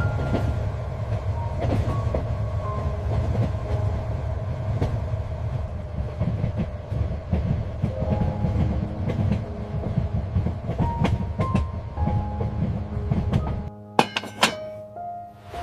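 Train running, a steady low rumble with irregular rattles and clacks of the wheels on the track. Near the end the rumble cuts off suddenly and a few sharp clicks follow.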